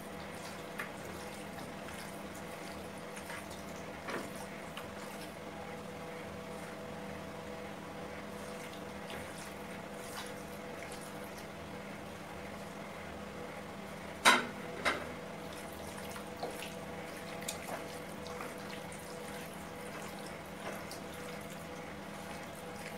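Wet squishing and faint clicks of a hand kneading marinated chicken in a steel pan, over a steady electrical hum. A sharp knock about fourteen seconds in, with a smaller one just after.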